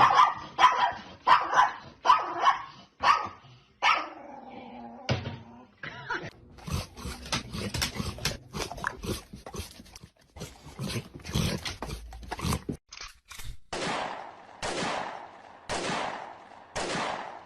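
A dog barking in a quick run of loud, repeated barks, about two a second, then a brief whine. Later come a patter of clicks and five long breathy sounds near the end.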